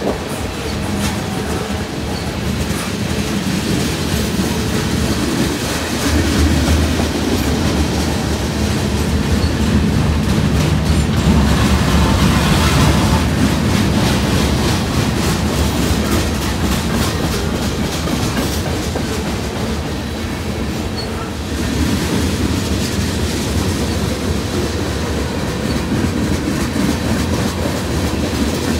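Freight train cars rolling past at close range: a steady rumble of steel wheels on rail with repeated clickety-clack over the rail joints, swelling somewhat in the middle.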